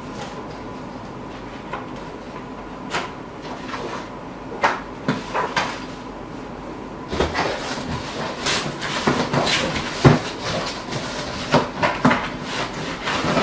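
Sheets of packing paper and a cardboard box being handled on a wooden desk: scattered rustles and light knocks, few at first and much busier in the second half, over a faint steady hum.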